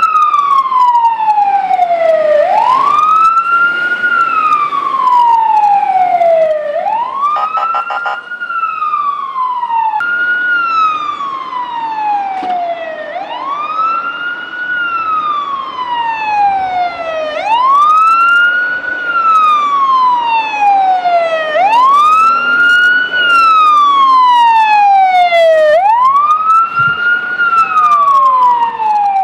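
Fire engine siren wailing: each cycle sweeps quickly up in pitch and then falls slowly, repeating about every four seconds.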